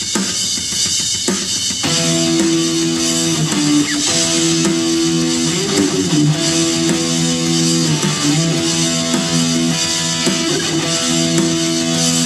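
Hard-rock instrumental jam: electric guitar playing long, sustained chords over drums with steady cymbals, the guitar entering about two seconds in.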